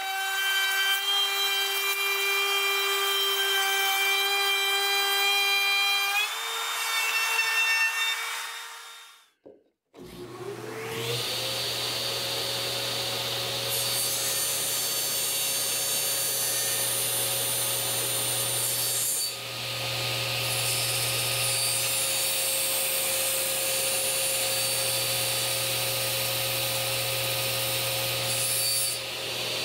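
A compact router with a half-inch bit cuts a dado in plywood for about nine seconds, its pitch stepping up slightly about six seconds in, then stops. After a brief silence a table saw spins up and rips plywood panels, with short dips between cuts.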